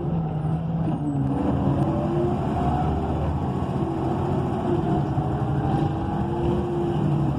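Inside a transit bus, its Cummins Westport ISL G natural-gas engine and Allison automatic transmission running under way. The pitch drops about a second in, then a whine slowly rises as the bus gathers speed.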